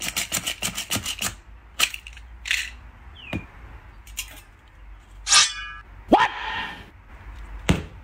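A knife tip stabbing rapidly on a leather ottoman between spread fingers, about seven quick taps a second for just over a second, then single scattered taps. A few short squeaky sounds with sliding pitch come in the second half.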